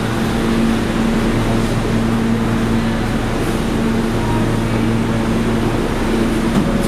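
Kawasaki R143 subway car standing still at the platform, its air-conditioning and onboard equipment giving a steady, even hum with a low drone in it.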